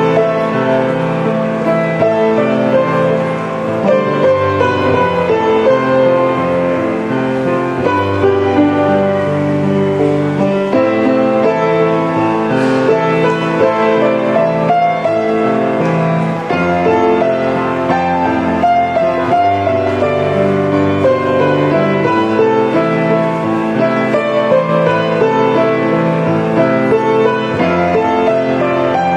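Instrumental background music led by piano, with long held notes and chords.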